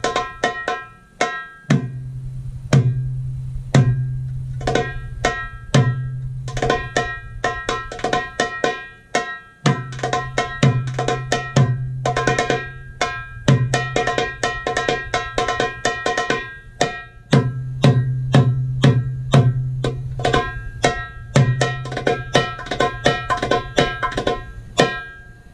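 Darbuka (goblet drum) played solo: deep, ringing doum bass strokes mark the accents, with quick high tek-ka strokes and rolls ("taka-taka") filling between them. The playing stops just before the end.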